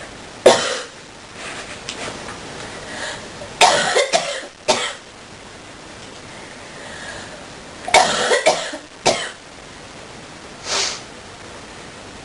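A person's deep coughing fit: one cough about half a second in, a run of coughs around four seconds in, another run around eight to nine seconds, and a last weaker cough near eleven seconds.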